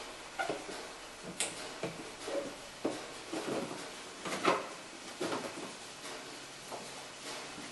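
Plastic windshield cowl cover being pushed and fitted into place by hand: a run of irregular light knocks, clicks and scrapes, the loudest about halfway through.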